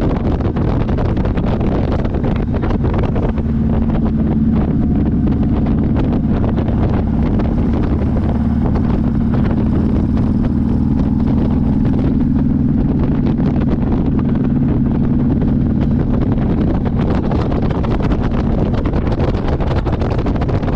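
Motorcycle engine running steadily while riding, with heavy wind noise on the microphone.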